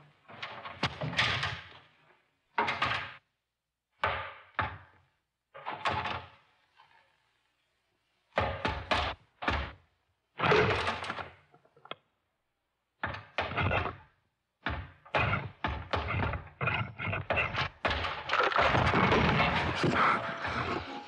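Stepladder being handled, set down and climbed: a string of separate clunks and thuds with dead gaps between them, coming faster and faster until they run together into a dense clatter over the last few seconds.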